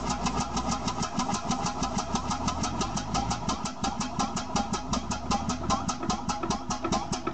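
Robb 10×10 single-cylinder steam engine, built about 1915, running steadily on compressed air: a fast, even train of sharp exhaust puffs with the mechanical clatter of the engine turning over.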